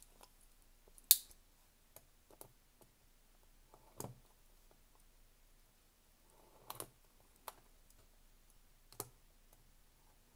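Scattered clicks and taps with a faint plastic rustle as a folding utility knife cuts the wrapping along the edge of a cardboard trading-card booster box. The sharpest click comes about a second in.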